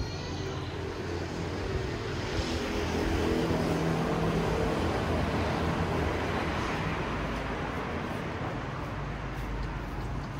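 A motor vehicle passing on the street, its engine and tyre noise swelling over the first few seconds and easing off toward the end.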